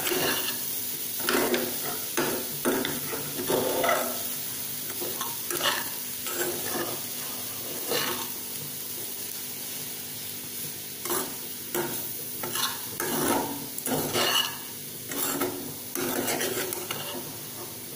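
A steel spoon stirring and tossing cooked rice in a non-stick kadai, scraping the pan in irregular strokes with a short lull about halfway through, over a steady sizzle from the hot pan.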